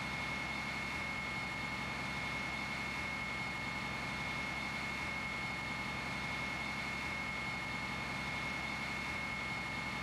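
Steady mechanical drone with a constant high-pitched whine running over it, unchanging throughout.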